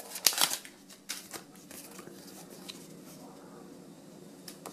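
Torn sticker-packet wrapper crinkling and a small stack of paper stickers rustling as they are pulled out, with a burst of sharp crinkles in the first second, then faint light rustles and ticks as the stickers are handled.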